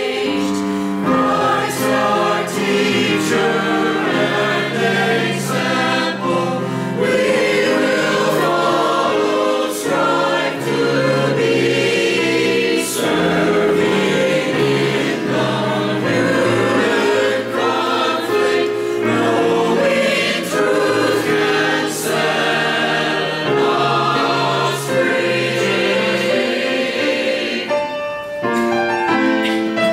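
Mixed church choir of men and women singing an anthem in parts, voices sustained and continuous.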